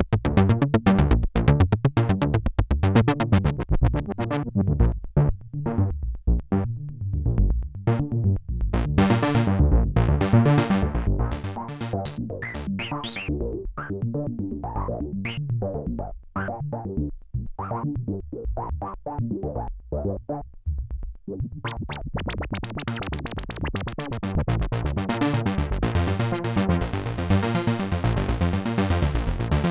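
Sequential Trigon 6 analog synthesizer playing its Trancer Arp preset: a fast, even arpeggio over pulsing bass notes. The sound grows duller and thinner through the middle, then turns bright again near the end.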